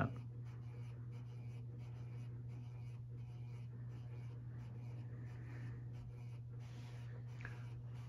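Hampton Bay Littleton 42-inch ceiling fan running: a steady low motor hum, with a faint swishing that pulses evenly a few times a second as the blades turn.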